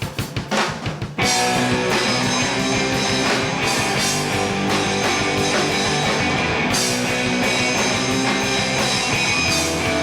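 Rock music with electric guitar and drums: a choppy run of short stabs in the first second or so, then the full band playing on steadily.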